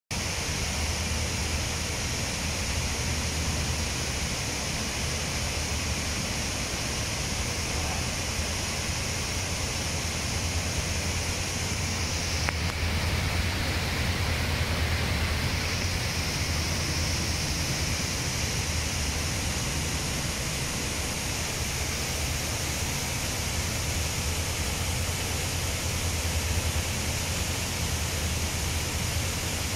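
Steady rush of running water: an even hiss over a low rumble, with the high hiss thinning for a few seconds midway.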